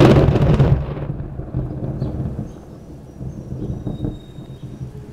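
A thunderclap: a sudden loud crack that rolls into a low rumble, swelling and fading over the next few seconds.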